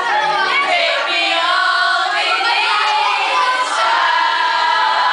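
A group of teenage girls singing a slow song together, one of them into a microphone, holding long notes.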